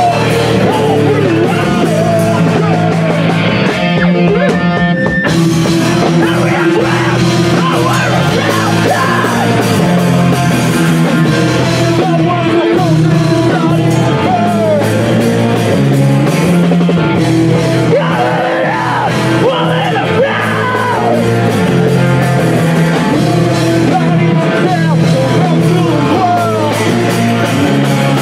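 Live rock band playing loudly, with guitars, drums and a singer's vocals.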